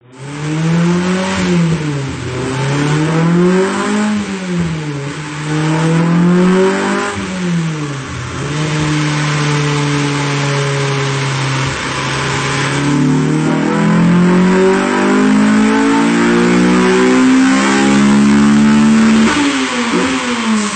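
Honda K20A four-cylinder engine in a Civic hatchback on a chassis dyno, breathing through a 3-inch exhaust with a Magnaflow muffler. It revs up and down three times, holds a steady speed for a few seconds, then makes a long pull with steadily rising pitch and drops off sharply near the end.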